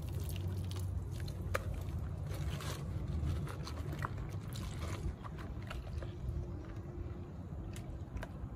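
Soapy water sloshing and splashing in a plastic gold pan as hands scrub and swish a ribbed rubber sluice mat, with scattered wet squelches and scrapes, washing the caught concentrates out of the mat. A steady low rumble runs underneath and eases about halfway through.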